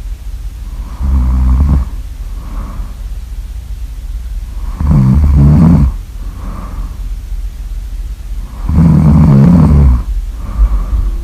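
Loud snoring: three rasping snores about four seconds apart, each about a second long, with a softer breath out between them.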